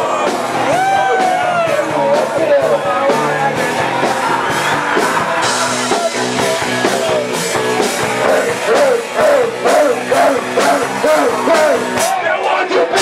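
Live rock band playing a fast punk-rock song: drums, bass and electric guitar, with some yelled vocals over the instrumental passage.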